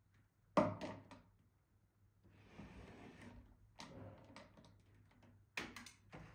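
Handling noises: a sharp knock with a couple of clicks about half a second in, then two stretches of soft rustling, and another cluster of sharp knocks near the end.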